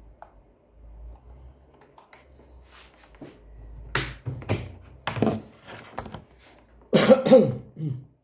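A person coughing several times in short bursts, the loudest and longest cough near the end.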